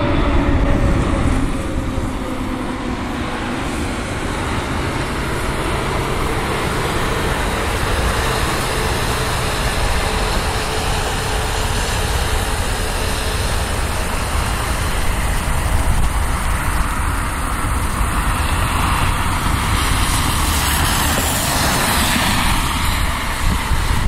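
Jet engines of an Airbus A320neo landing. A tone falls in pitch over the first few seconds as the plane passes low on final approach. Steady jet noise carries on through touchdown and rollout, growing brighter near the end.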